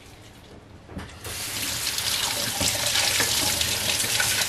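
Kitchen mixer tap turned on about a second in, water running steadily and splashing over a bunch of asparagus being rinsed under it.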